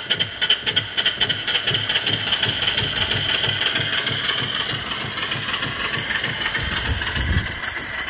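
Small horizontal single-cylinder steam engine running under steam, giving a fast, even beat of exhaust chuffs over a steady steam hiss. The beat softens into a smoother hiss in the second half.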